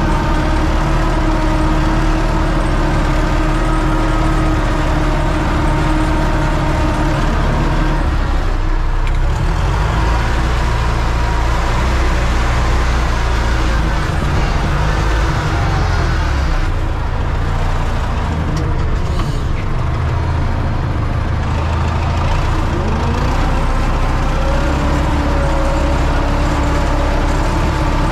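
Universal U650 tractor's four-cylinder diesel engine running steadily under load while pulling a row-crop cultivator through a maize field, heard from inside the cab. Its pitch shifts slightly now and then.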